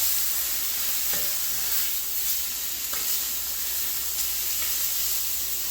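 Chicken breasts frying in hot olive oil in a skillet, with a steady sizzle and a few light clicks of a utensil against the pan.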